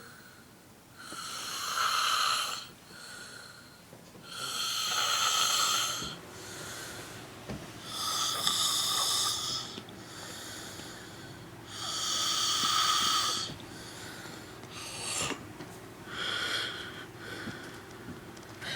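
Snoring: one long snore about every three to four seconds, then a few shorter ones near the end.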